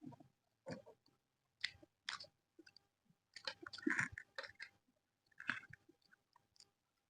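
Close-miked chewing of aloo methi paratha, with irregular short wet mouth clicks and smacks; a denser, louder run of chewing comes about three and a half seconds in.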